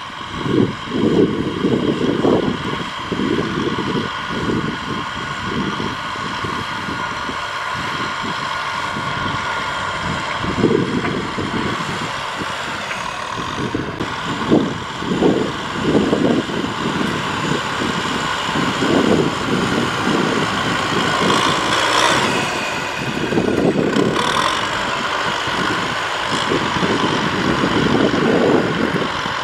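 Kubota tractors' diesel engines running steadily under load as they pull disc ploughs through dry soil, with uneven low rumbling under a steady engine note.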